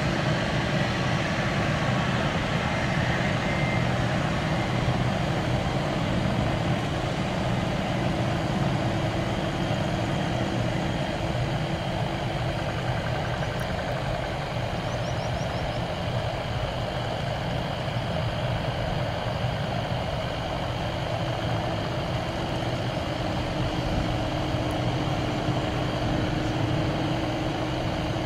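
Boeing 747-400 freighter's four jet engines running at taxi power as it rolls past, a steady rumble with a hiss on top.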